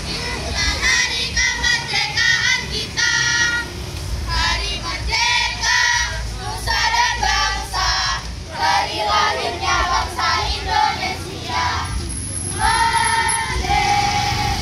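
A group of girls singing a marching song together in unison as they march, the voices rising and falling in phrases with held notes near the end. A steady low rumble runs underneath.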